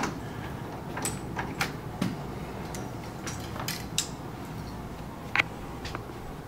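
Photo light stands being moved and their lamp heads adjusted: a scattered series of light clicks and knocks, the sharpest about five seconds in.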